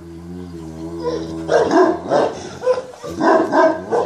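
Central Asian Shepherd dogs barking repeatedly, about three barks a second, starting about one and a half seconds in. Before the barking there is a low, steady drawn-out growl.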